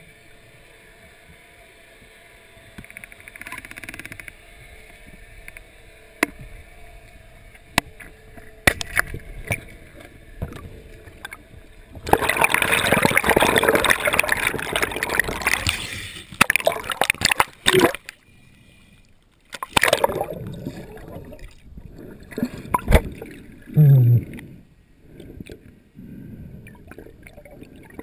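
Underwater sounds heard through a diving camera: water moving and bubbling, with scattered sharp clicks and knocks. About twelve seconds in, a loud stretch of rushing, bubbling water lasts some four seconds.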